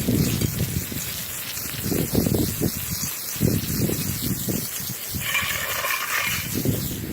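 Water spraying from a garden hose nozzle onto metal ceiling fan parts, with a steady hiss and uneven splashing surges.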